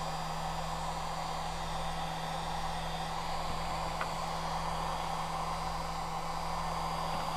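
Electric heat gun running steadily, its fan blowing hot air to shrink heat-shrink tubing over wires, with a constant motor hum.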